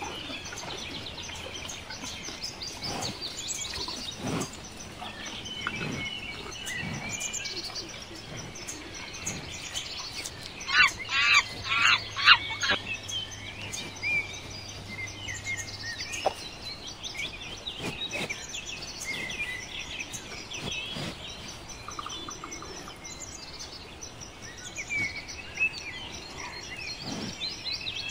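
Forest ambience full of small birds chirping and calling, with a loud run of five or six rapid, harsh calls about eleven seconds in.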